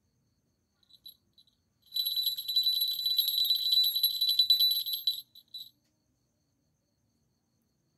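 Small falconry bell on a hawk's leg jingling rapidly for about three seconds as the bird shakes and moves, with a few light tinkles just before and after.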